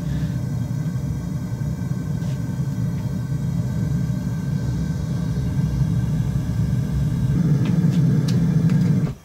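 Gas-fired metal-melting furnace burner running with a steady low rumble, a little louder toward the end, cutting off abruptly just before the end.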